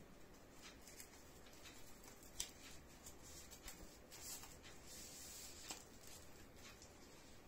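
Faint crinkling and rustling of cellophane shrink wrap being peeled off a CD case, with a few light clicks, the sharpest about two and a half seconds in.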